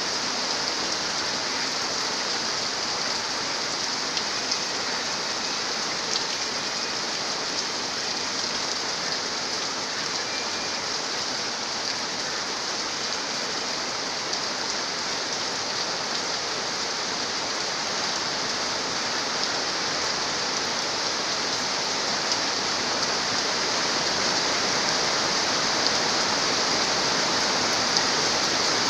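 Steady rain falling, an even hiss with a few sharper drop ticks here and there, growing slightly louder near the end.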